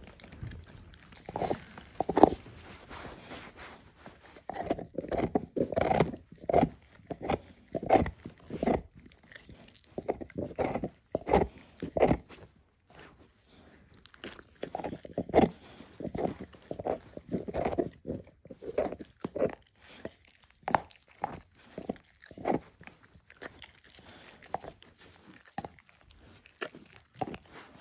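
Dog licking and gnawing a bone: a run of wet licks and chews at uneven intervals, roughly one or two a second, with a short lull partway through.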